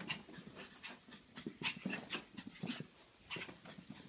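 Dogs panting hard in quick, irregular bursts while play-wrestling.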